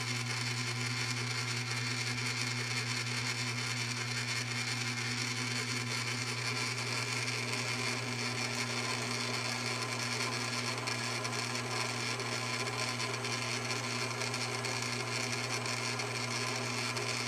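Cowells 90 ME lathe running steadily under power, its motor and drive giving a constant low hum with a steady higher whine.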